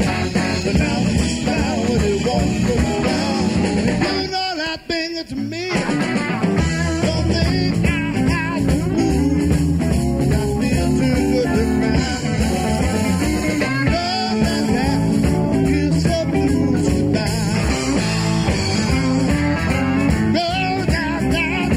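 Live blues-rock band playing: electric guitars over a full band, with singing at times. The band drops out for about a second roughly five seconds in, then comes back in.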